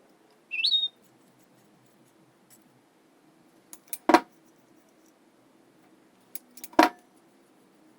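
Small metal parts of a pressure kerosene lantern being handled during restoration: a brief high squeak that rises in pitch under a second in, then two sharp metallic clinks about three seconds apart.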